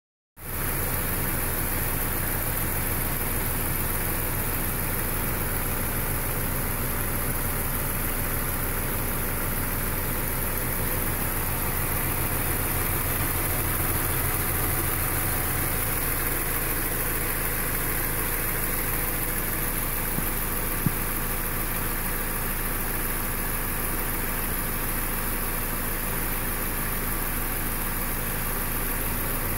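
Subaru Outback's FB25 2.5-litre non-turbo flat-four boxer engine idling steadily with the hood open, running on fresh oil and a new filter. One brief click about two-thirds of the way through.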